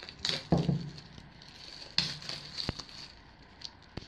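Plastic shrink-wrap being torn and pulled off a CD album package, crinkling in several short bursts with a couple of sharp clicks.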